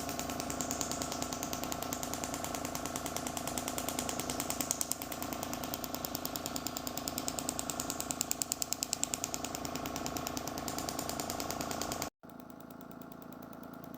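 Radial shockwave therapy device firing a steady train of rapid, evenly spaced pulses into the patient's body. The pulsing cuts off suddenly about twelve seconds in, leaving a quieter steady hum.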